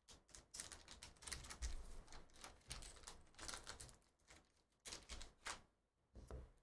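Faint crinkling and tearing of a sealed black plastic card pack being ripped open by hand: a busy run of small crackles and clicks.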